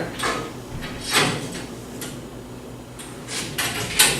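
Metal tree stand parts being handled as the front rail is set against the platform's side bracket and a bolt worked through the holes. There are several short knocks and scrapes, the loudest near the end.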